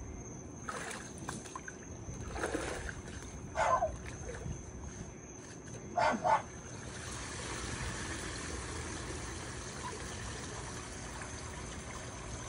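Water trickling and splashing, with two short, sharp pitched sounds about four and six seconds in. From about seven seconds the water sound settles into a steady hiss.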